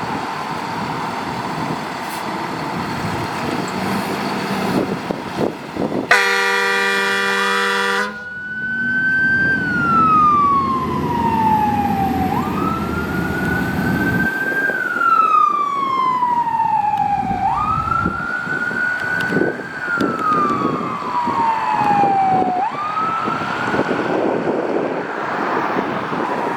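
A fire engine's air horn blasts once for about two seconds over the truck's engine and road noise. Its siren then starts wailing, the pitch jumping up quickly and sliding slowly down about every five seconds.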